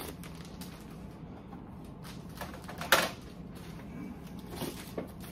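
Hard plastic graded-comic slabs being handled, knocking against each other and against a surface, with a sharp clack about three seconds in and a few lighter knocks and plastic rustles after it.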